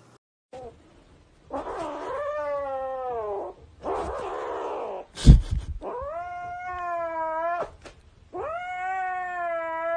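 A cat yowling: three long, drawn-out calls of about two seconds each, with a rougher, noisier cry between the first two. A loud thump comes about five seconds in.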